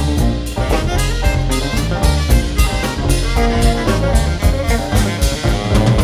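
Jazz ensemble playing live: saxophones carry the melody over a drum kit keeping a steady beat.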